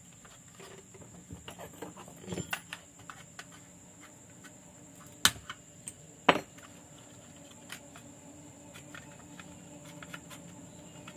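Scattered clicks and taps of a Honda Livo motorcycle's digital meter being handled: its circuit board and plastic housing knocking and clicking in the hands, with two sharp loud clicks about five and six seconds in.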